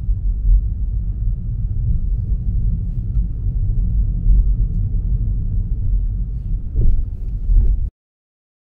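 Steady low rumble of a car on the move, road and engine noise picked up by a camera riding on the car, with two brief louder bumps near the end. The sound cuts off abruptly about eight seconds in.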